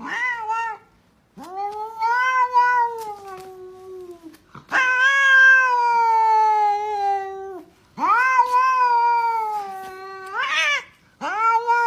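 Domestic cat giving a short meow, then a run of long drawn-out meows of two to three seconds each, sliding slightly down in pitch. The loudest comes about five seconds in, and a brief rising call sits between the last two.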